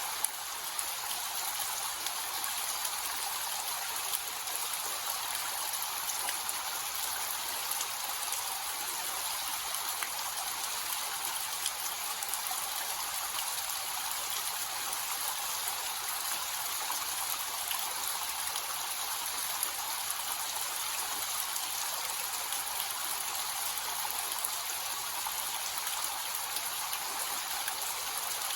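Small waterfall with a light, gentle flow of water falling and splashing steadily, with scattered small droplet splashes and no deep rumble.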